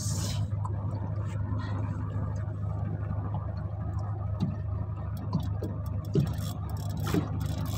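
A boat's engine running steadily at low revs, with a few light knocks in the second half.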